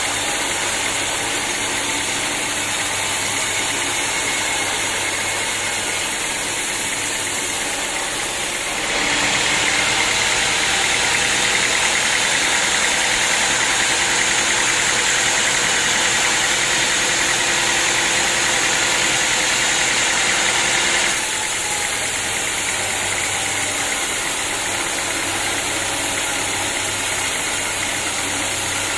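Sawmill running steadily, with a louder, hissier stretch of about twelve seconds in the middle as the blade cuts through a large acacia log, then dropping back to its steady run.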